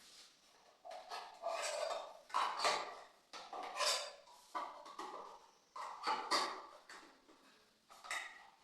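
Hard plastic parts of a toothbrush holder knocked, clicked and pressed together as its cups and stoppers are fitted: an irregular series of short knocks and clatters.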